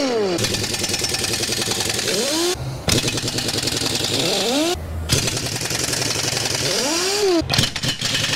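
Pneumatic impact wrench hammering on the track-shoe bolts of a Komatsu D61PXi dozer, loosening them to take off the track pads. It runs loudly with a rapid rattle and a pitch that swells and falls, cutting out briefly three times as it moves from bolt to bolt.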